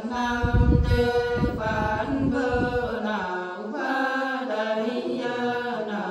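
Nùng women singing a traditional folk song unaccompanied, in long held notes that step from pitch to pitch. A low rumble sits under the singing for the first three seconds.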